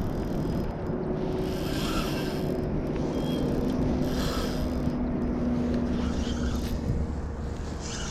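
Wind buffeting the microphone in a steady rumble, with two short bursts of hiss about two and four seconds in.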